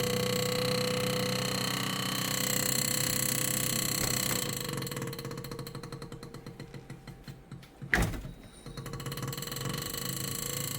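LG refrigerator's freezer fan running with its blades striking built-up ice: a fast buzzing rattle, the "brrrr" of a fan hitting ice, with one sharp knock about eight seconds in. The ice blockage is what leaves the chiller side without cold air.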